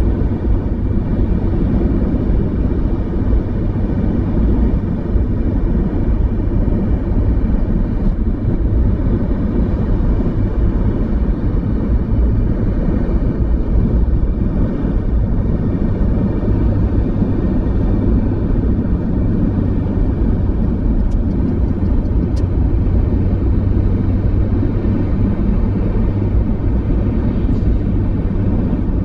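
Car driving at a steady speed on a highway: a continuous low rumble of tyres and engine, even throughout.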